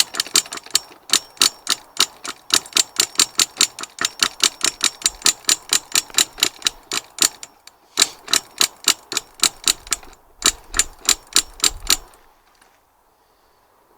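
A fast, regular run of sharp clicks, about four or five a second, with two short breaks, stopping about twelve seconds in.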